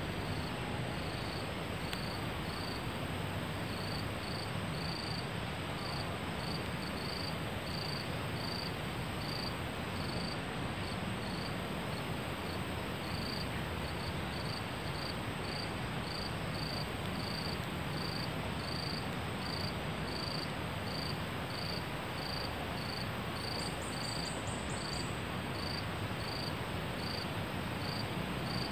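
Forest insects: one chirps at an even, unbroken pace, about one and a half chirps a second, over a thin, steady high-pitched drone and a constant hiss.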